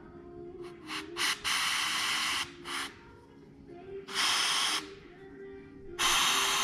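Compressed air hissing in repeated bursts from an air nozzle fed into a brake caliper to force the pistons out. There are two quick blips, then a blast of about a second, a short puff, another about four seconds in, and a longer blast starting near the end.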